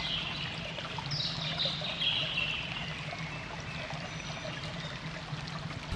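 Water trickling and running.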